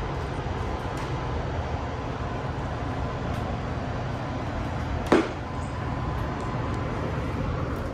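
Steady hum of a MARTA rail car's ventilation and onboard equipment while the train stands at the station, with no wheel or motor noise. One sharp knock sounds about five seconds in.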